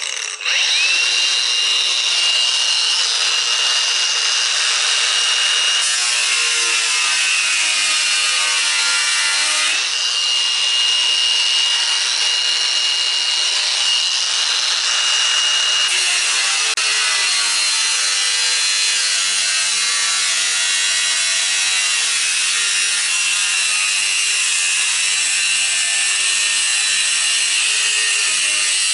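Hercules 20-volt brushless cordless angle grinder with a cutting wheel cutting through metal: a steady high whine over a harsh grinding hiss. The pitch sags under load about six seconds in and recovers near ten seconds, then shifts again.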